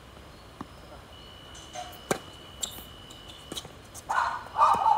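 Tennis ball struck by racket strings and bouncing on the hard court: a few sharp pops, the strongest about two seconds in. Near the end comes a short, loud, rough burst, the loudest sound of all.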